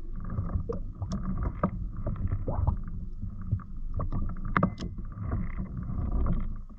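Water lapping against a fishing kayak's hull, with a steady low rumble of wind on the microphone and scattered small clicks and knocks from gear on the boat.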